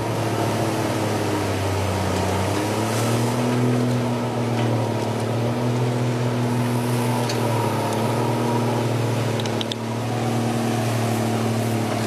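Diesel engine of a Komatsu D155W underwater bulldozer running steadily while working submerged. Its pitch steps up slightly about two and a half seconds in.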